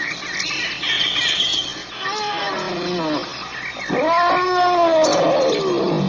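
African elephant calling: a short call that drops in pitch about two seconds in, then a longer call about four seconds in that rises and then slides slowly down. Higher, squeaky chirps come in the first second or two.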